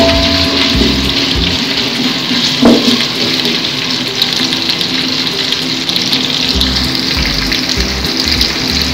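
Sliced raw onions and whole spices sizzling steadily in hot oil as they start to fry, with a single knock a little under three seconds in.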